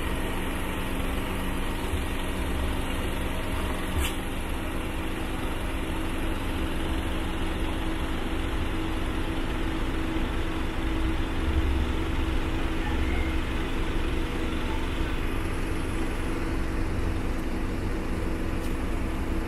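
An engine running steadily nearby, a constant low drone with an even hum, and a single sharp click about four seconds in.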